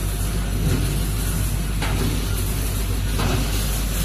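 O-ring packaging machine running, its vibratory feeder shaking loose rubber O-rings along the feed channels: a steady low hum under a rattling hiss, with short louder swells about two and three seconds in.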